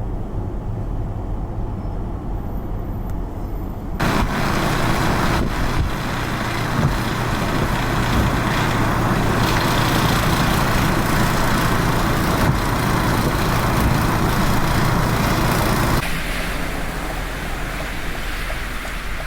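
A motor vehicle's engine running with a steady low hum. About four seconds in, a loud rushing noise abruptly joins it, and it cuts out just as abruptly near sixteen seconds.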